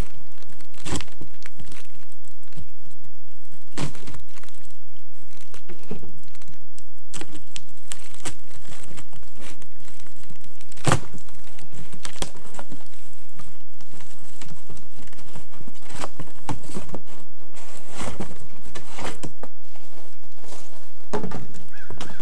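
Cardboard packaging being handled and pulled apart during unboxing: crinkling and tearing, with scattered sharp knocks and clicks.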